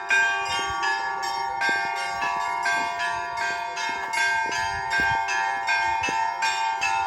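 Church bells ringing: small bells struck in a quick repeating pattern, about two strikes a second, over the steady hum of larger bells.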